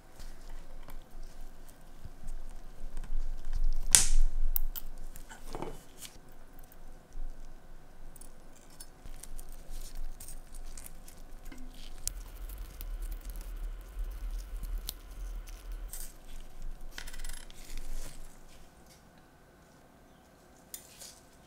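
Small metal watch movement parts being handled at the bench: scattered light clicks and taps, one sharp metallic click about four seconds in, and a second-long rubbing noise about seventeen seconds in.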